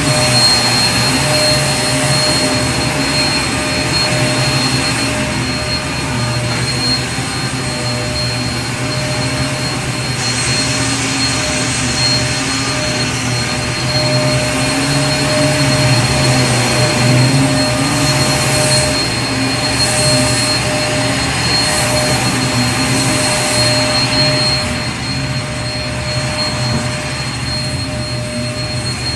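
Vacuum cleaner running steadily: a constant motor whine over rushing air, dropping slightly in level near the end.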